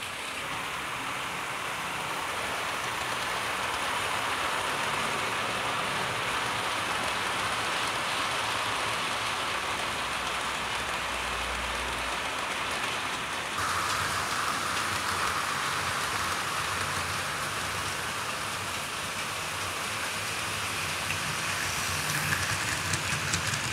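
Hornby OO gauge model trains running on the layout: a steady rolling hiss of the coach and wagon wheels on the track, with the whir of the locomotive motors. The tone shifts about halfway through.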